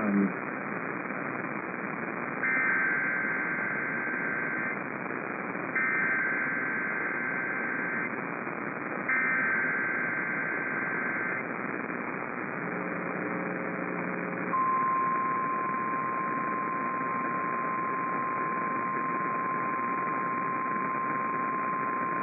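Emergency Alert System activation over a NOAA Weather Radio feed, with steady static hiss throughout. Three SAME digital header bursts come first, each a two-tone warbling screech about two seconds long. A brief low buzz follows, then the long steady 1050 Hz warning alarm tone that announces a severe thunderstorm watch message.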